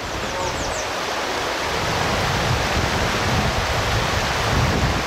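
Shallow river riffle rushing steadily, with gusts of wind buffeting the microphone from about a second and a half in. A few brief high chirps near the start.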